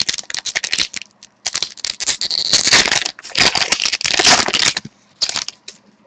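Foil wrapper of a hockey trading-card pack crinkling and tearing as it is handled and opened, in three bursts of crackling, dying away about a second before the end.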